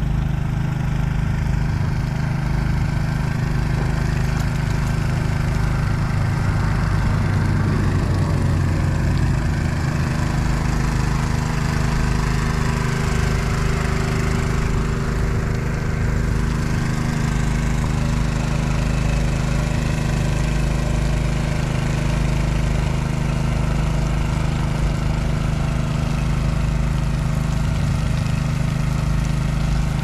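Steady engine drone from a slow-moving pickup truck towing a water-tank sprayer trailer that wets down recycled asphalt millings, with a constant hiss over it.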